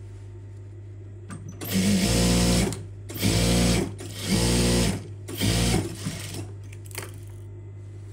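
Sewing machine stitching a shoulder seam in four short runs of about a second each, stopping briefly between them.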